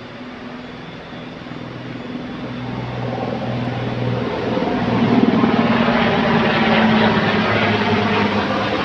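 Drone of a passing aircraft engine, building steadily and loudest past the middle before easing off slightly.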